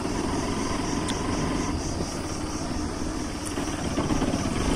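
Motorcycle engine running steadily while riding along a dirt road.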